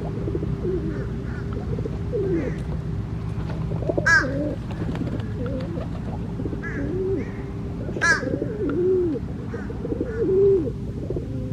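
Doves cooing in repeated low, curved notes, with another bird giving two sharp, louder calls about four and eight seconds in. A steady low hum runs underneath.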